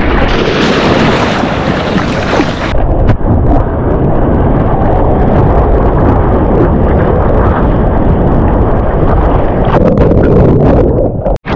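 Rushing, splashing surf water and wind buffeting the microphone of an action camera mounted on a surfboard as the surfer rides a breaking wave. Hissing splashes over the camera in the first few seconds; the sound cuts out for an instant near the end.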